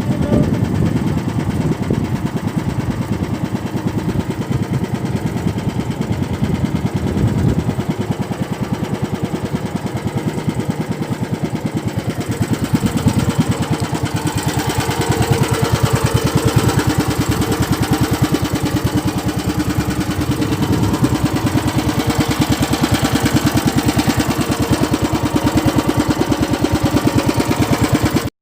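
A small fishing boat's engine running steadily with a fast, even firing beat. It gets somewhat louder about halfway through.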